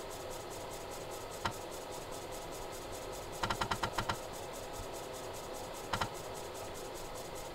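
Low-fidelity computer sound effect for a cartoon character climbing a palm tree: short sharp clicks over a steady hiss. There is one click about a second and a half in, a quick run of about six clicks around three and a half seconds in, and a pair about six seconds in.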